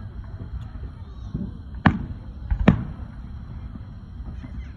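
Aerial firework shells bursting: two sharp bangs a little under a second apart, about two seconds in, over a low steady rumble.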